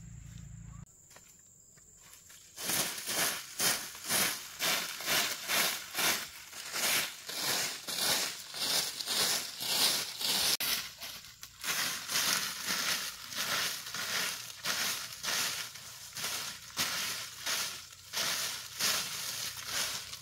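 A bundled dry-grass broom sweeping dry leaves over bare earth: a steady run of scratchy swishes, about two strokes a second, starting about two seconds in.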